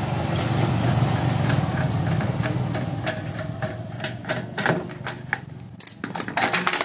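Scattered metal clicks and taps from a screwdriver and hands working around a Hero NXG moped's tank and engine, coming thicker toward the end. A low hum runs under the first few seconds and fades.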